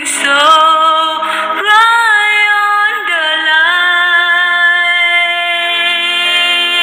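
A woman singing an English pop ballad lyric, the notes sliding between pitches and ending on a long held note for the last three seconds or so.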